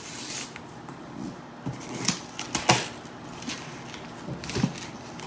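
Packing tape and a paper label being peeled and torn off the top of a cardboard shipping box, in a string of short, sudden rips and rustles.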